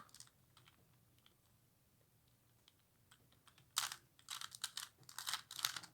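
A 3x3x3 Rubik's Cube being turned by hand: quick runs of clicking plastic as its layers are twisted, starting about four seconds in after a near-quiet stretch with a few faint ticks.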